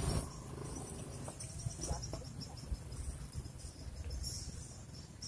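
Insects chirping in a fast, evenly pulsing high-pitched trill over a low steady rumble, with a short burst of noise right at the start.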